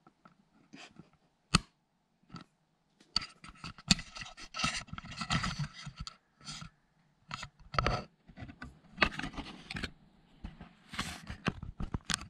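Scratching and scraping on cardboard in irregular bursts, with sharp knocks and clicks, from a cat moving about inside a cardboard box cave. The loudest knock comes about one and a half seconds in.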